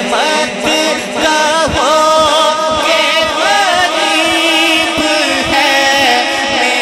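A man singing a naat, an Urdu devotional poem, into a microphone, drawing out long wavering notes that bend up and down.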